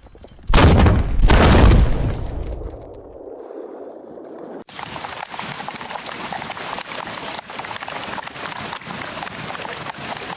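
Two loud explosion booms, under a second apart, with a rumbling decay; a few seconds later the sound cuts abruptly to a steady crackling hiss like heavy rain. These are sound effects of the kind the Woosh model generates for video.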